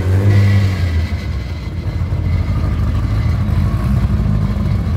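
Modified Volkswagen Gol hatchback drag car's engine running at low revs as it creeps up to the start line. It is louder and moving in pitch in the first second, then settles to a steady low rumble.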